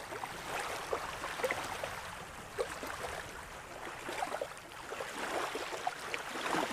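Small waves lapping at the reservoir's edge, a steady wash of water with scattered little splashes and gurgles.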